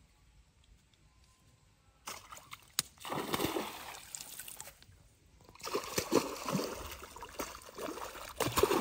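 A hooked fish thrashing and splashing at the surface of a pond as it is pulled in toward the bank, in two spells of splashing starting about two seconds in, the loudest splash near the end.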